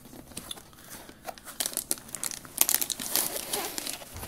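Plastic anti-static bag crinkling, with foam packing rubbing against a cardboard box, as it is lifted out of its packaging. A run of sharp crackles, busiest in the middle.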